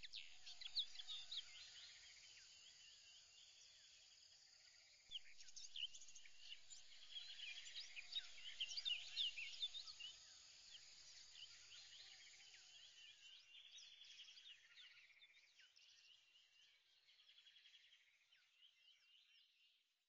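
Faint chorus of many small birds chirping, busier from about five seconds in and fading out near the end.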